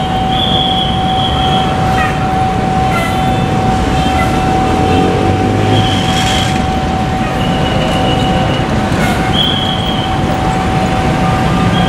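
Railway level-crossing warning alarm sounding as one continuous steady tone over dense road-traffic noise, with several short high-pitched tones cutting in. It is a false alarm: no train arrives.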